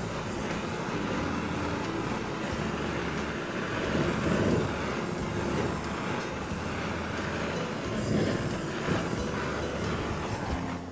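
Handheld kitchen blowtorch flame burning steadily, a continuous rushing hiss, as it caramelises caster sugar and hot butter on top of a cherry clafoutis. It cuts off near the end.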